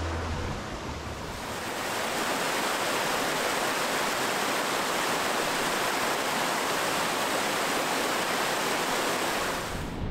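Steady rush of water falling over a 28-foot rocky cascade, growing louder about a second and a half in, then holding even.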